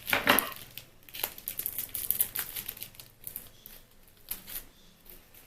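Small plastic seasoning sachets from an instant noodle pack crinkling as they are handled, loudest in the first half second, then in sparser, fainter crackles.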